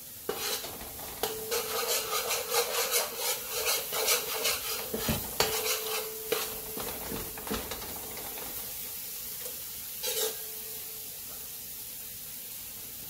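A metal spoon scrapes and stirs curry masala frying in oil in a stainless steel pan, over a steady sizzle. The strokes come quickly for the first several seconds, then stop, leaving mostly the sizzle with one more scrape near the end.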